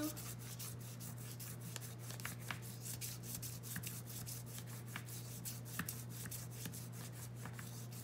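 Wax crayon rubbed quickly back and forth over paper laid on a leaf, making a leaf rubbing: a rapid, scratchy scraping of many short strokes.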